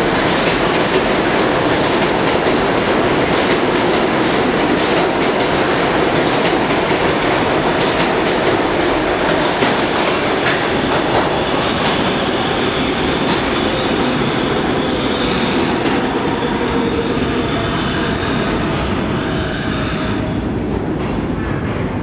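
New York City Subway 7 train of R188 cars (converted R142As) pulling out of an underground station. There is a dense rush of wheel and rail noise, with sharp clatters over the rail joints in the first half, and it fades slowly as the train heads off into the tunnel.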